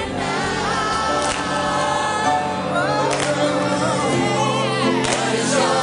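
Break music with a sung vocal melody over instrumental backing.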